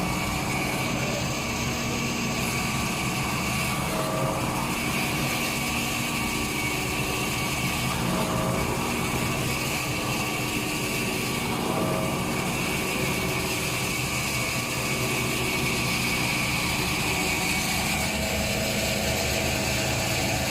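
Machinery running steadily, a continuous hum with several held tones.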